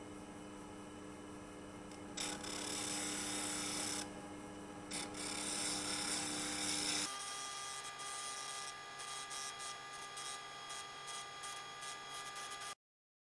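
Small mini-lathe motor running with a steady hum while a tool rubs and scrapes against the spinning black alder blank in passes of a second or two. The motor's tone changes about seven seconds in, and short rubbing strokes follow before the sound cuts off abruptly.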